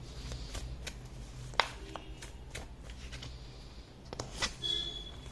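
Oracle cards being shuffled and handled: a scatter of soft card snaps and taps, the sharpest about a second and a half in.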